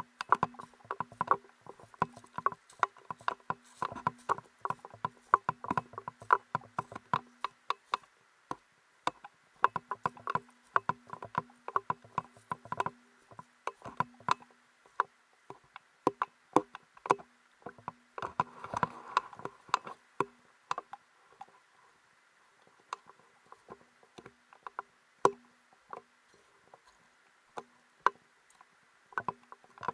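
Footsteps crunching over a beach of loose pebbles and gravel: irregular clicks and clatters of stones underfoot, dense for the first twenty seconds, then sparser and more widely spaced.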